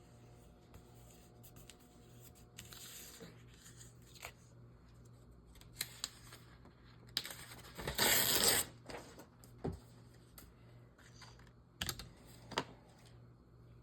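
Paper being handled at a craft desk: scattered light taps and clicks, with a louder rustling, tearing-like stretch lasting about a second and a half a little past the middle.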